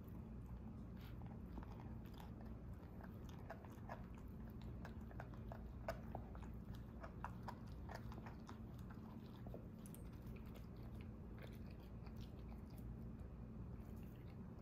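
Puppies gnawing on a bully stick: a run of soft, irregular chewing clicks and crunches, thickest in the middle, over a low steady hum.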